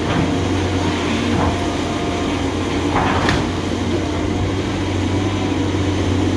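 Heavy diesel engine running steadily with a constant low hum, and a brief rustle or scrape about three seconds in.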